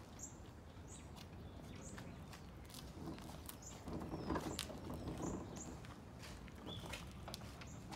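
Faint rolling noise of the Cozy Mk. IV fuselage's small wheels on the driveway as it is pushed, louder about halfway through, with small birds chirping in short high calls throughout.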